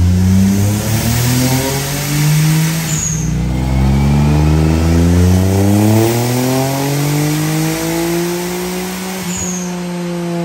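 Turbocharged Perodua Viva engine revving hard under load on a chassis dyno. Its note climbs for about three seconds, drops sharply, then climbs again more slowly for about six seconds before easing off near the end. There is a brief high chirp each time the revs fall.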